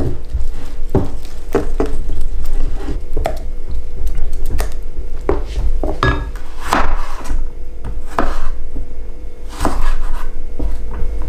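Wooden spoon beating runny pancake batter in a glass bowl, knocking irregularly against the glass, with a low rumble underneath. Later a knife cuts carrot into strips on a wooden chopping board.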